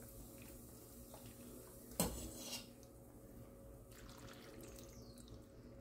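A metal ladle clinks once about two seconds in, then pork broth is poured from the ladle over noodles in a ceramic bowl with a faint trickle and splash.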